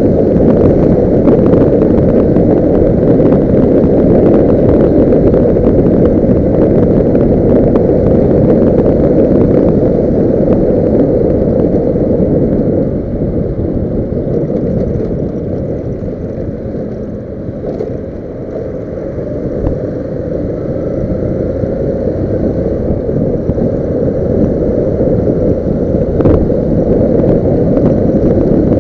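Wind buffeting the camera microphone of a motor scooter at riding speed, a dense low rumble with the scooter's engine under it. It eases for several seconds past the middle, then builds again.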